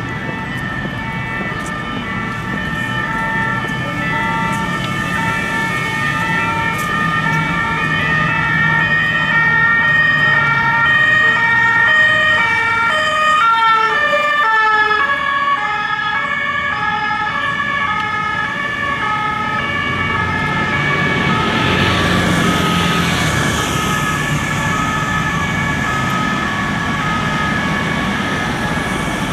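French two-tone police siren ("deux tons") sounding continuously, alternating between two notes. Its pitch drops about halfway through as the car passes close by, and it carries on as the car moves off through traffic. A steady high tone and traffic noise run underneath.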